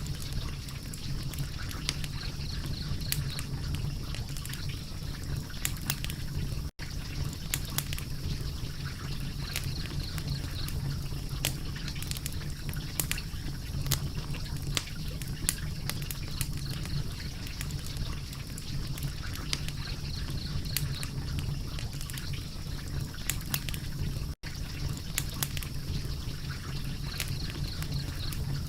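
Wood fire crackling: irregular sharp pops and snaps over a steady low rumble of the flames. The sound drops out for an instant twice, where the recording loops.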